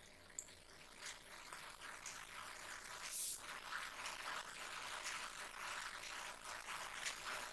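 Faint scraping and ticking of a screwdriver turning a screw into the printer's metal frame, with a small click near the start and a brief louder scrape about three seconds in.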